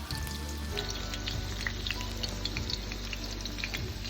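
Thin chicken cutlets frying in hot oil in a pan, a light crackle of scattered small pops, with background music underneath.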